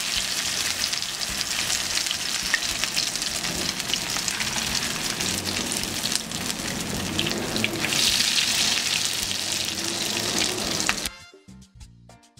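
Corn fritters sizzling as they shallow-fry in hot oil in a pan, with light taps and scrapes of a plastic spatula as they are turned. The sizzling cuts off suddenly about a second before the end, leaving quiet background music.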